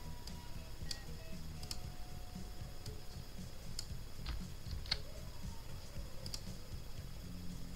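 Computer mouse clicks and keyboard presses, about seven sharp single clicks roughly a second apart, one a little past the middle louder than the rest, over a steady low hum.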